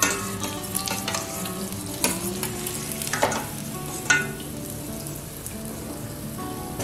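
Capsicum bajjis deep-frying in a steel kadai of hot oil, a steady sizzle, as the finished fritters are turned and lifted out with a spoon. A few sharp clicks sound about 2, 3 and 4 seconds in.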